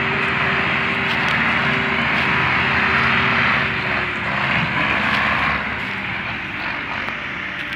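Diesel tractor engine running hard under heavy load as it pulls a loaded trolley, belching black smoke, with a steady engine drone. Slightly quieter in the last couple of seconds.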